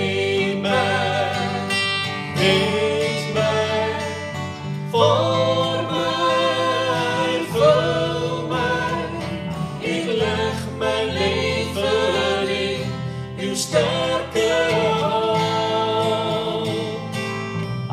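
Live worship band: strummed acoustic guitars accompanying female and male voices singing a slow song together.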